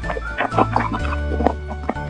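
Background music with a steady bass line that changes note about a second in, with short percussive clicks over it.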